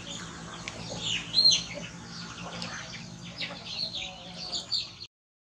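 Small birds chirping, many short high chirps overlapping, with one louder rising-and-falling call about a second and a half in; the sound cuts off suddenly near the end.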